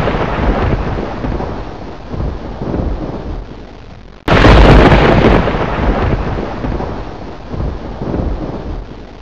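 Thunder sound effect: a rolling rumble fading away, then a second sudden thunderclap about four seconds in that rumbles and slowly dies down.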